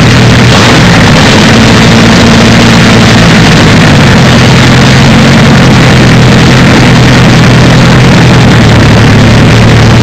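Napier-Bentley's 24-litre W12 Napier aero engine running loud and steady through its short open exhaust stubs, with a slight change in pitch about four seconds in.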